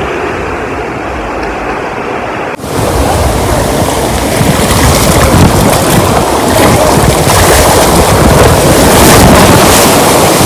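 Water rushing along a water-park ride channel, with wind noise on the microphone. About two and a half seconds in the sound cuts abruptly to a louder, fuller rush.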